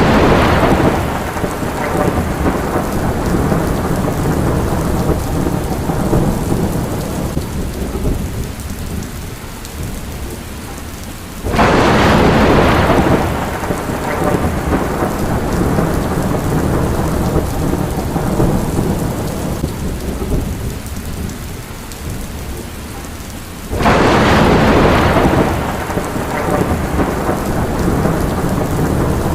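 Steady heavy rain with rolls of thunder: two peals break in suddenly about twelve seconds apart, each fading out over several seconds, while a previous roll dies away at the start.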